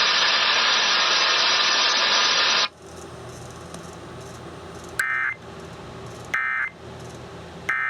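Loud radio static hiss that cuts off suddenly after about two and a half seconds. It is followed by three short, identical data-burst screeches about 1.3 seconds apart: the EAS SAME end-of-message (EOM) bursts that close an emergency alert broadcast.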